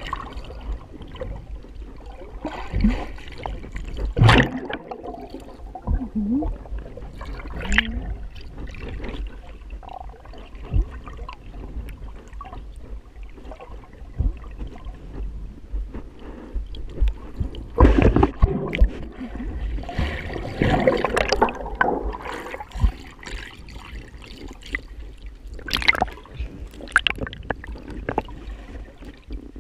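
Muffled sloshing, gurgling and splashing of water stirred by swimming strokes, heard from under the water, with irregular thumps; the loudest splashes come a little past halfway.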